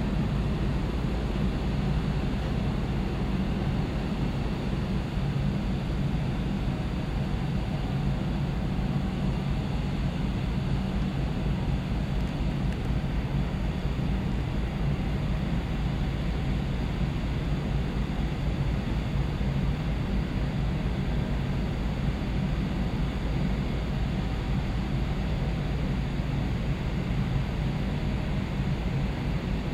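Shin Nihonkai Ferry's new car ferry Lavender under way, giving a steady low drone from its engines and machinery, heard from the deck.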